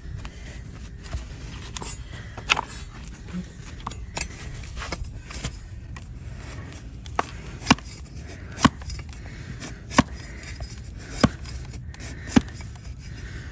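A large flat farrier's blade paring a donkey's hoof, making sharp, short cracks as it cuts through the hoof horn. The cracks come sparsely at first, then about once a second from about halfway through.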